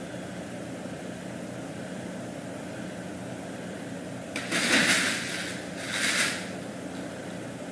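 Crinkly fabric cat play tunnel rustling in two short bursts as a cat pushes into it, over a steady low hum.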